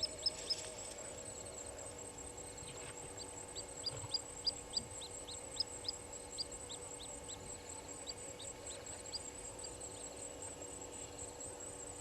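A bird calling in several runs of short, high notes, each falling quickly in pitch, over a steady high-pitched drone.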